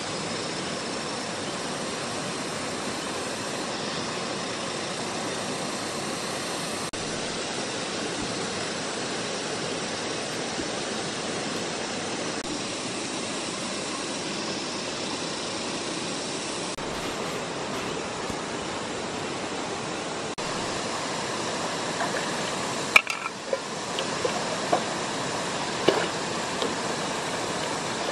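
Shallow river running steadily over stones. In the last few seconds, several sharp splashes and knocks from a pot being dipped and worked in the water at the river's edge.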